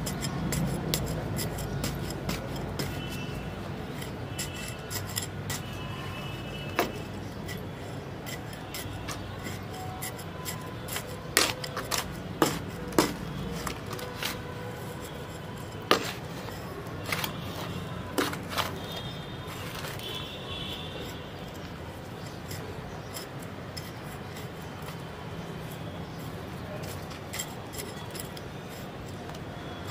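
Metal hand cultivator hook digging and scraping through dry, packed soil in a plastic paint bucket to loosen it, with irregular scrapes and sharp clicks as clods break, loudest through the middle.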